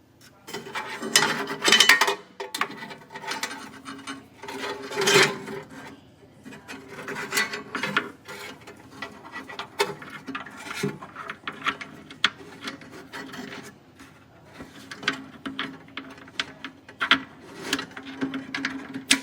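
Irregular rubbing and scraping with scattered sharp clicks, as of things being handled and moved, loudest in the first few seconds and again about five seconds in, over a faint steady hum.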